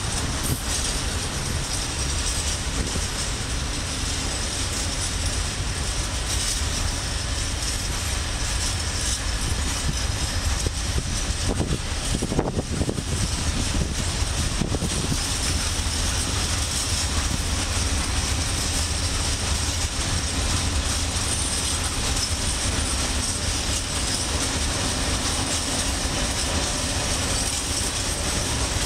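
Freight train hauled by a PKP Cargo ET41 two-section electric locomotive passing, hopper wagons rolling by with a steady low rumble of wheels on rails.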